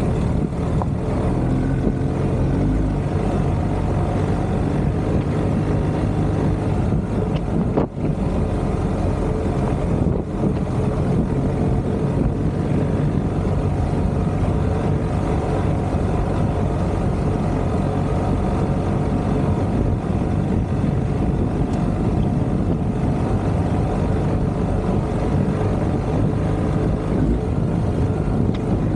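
BMW R1250GS boxer-twin motorcycle engine running steadily while riding a dirt track, with wind and road noise on the microphone.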